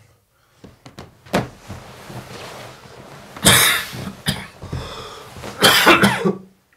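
A person coughing hard in two bouts, about three and a half seconds in and again near the end, after a few soft knocks.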